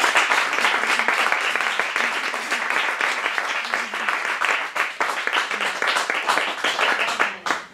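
A small group of people applauding, dense rapid hand claps that carry on steadily and cut off suddenly at the very end.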